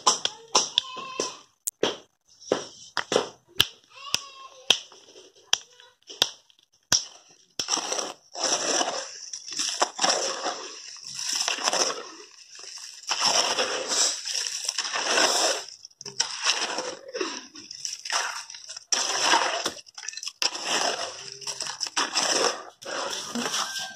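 A small hammer strikes stones in sharp, irregular taps as the stone is chipped. About seven seconds in, this gives way to a hoe scraping and sloshing through a pile of wet concrete mix on the ground, one stroke every second or so.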